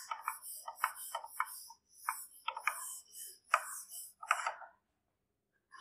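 Whiteboard duster wiped hard across a whiteboard in a quick run of short rubbing strokes, about two a second, that stop about a second before the end.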